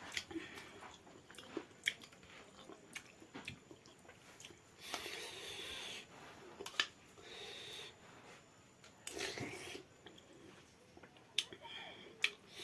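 Close-up chewing and mouth sounds of someone eating galho, a soft rice-and-vegetable porridge, with scattered sharp clicks and two longer noisy stretches partway through.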